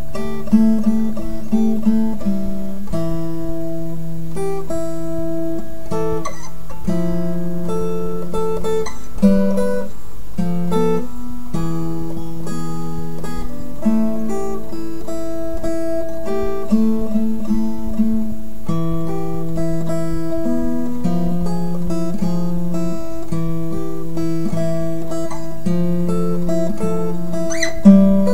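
Acoustic guitar music, plucked and strummed, at a steady level, with a few sharper, louder plucked notes near the end.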